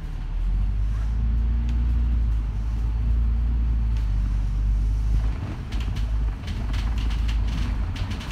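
City bus diesel engine and drivetrain running while under way, a steady low drone heard from inside the bus, easing off about five seconds in. Rattles and clicks grow more noticeable near the end.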